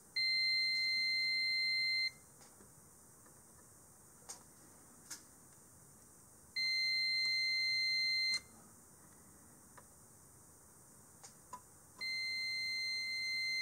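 Multimeter continuity beeper sounding three times, each a steady high beep of about two seconds, as the probes bridge the repaired traces between the keyboard connector and the keyboard controller: the connections conduct again. Faint clicks of the probe tips in the gaps between beeps.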